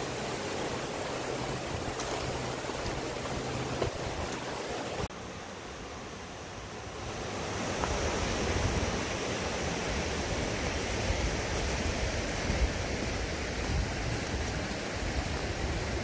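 Mountain stream rushing steadily. The sound drops abruptly about five seconds in and builds back up after about two seconds, heavier and deeper than before.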